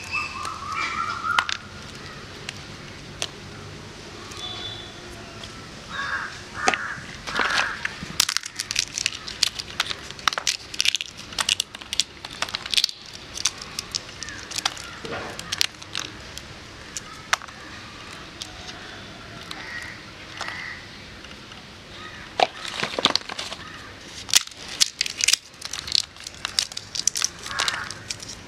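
Brittle dry shells of ripe tamarind pods cracking and snapping as they are broken open and peeled by hand. The cracks are many, sharp and irregular, with shell pieces crunching.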